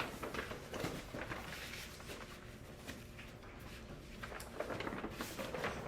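Scattered light knocks and rustling handling noises over a faint room background.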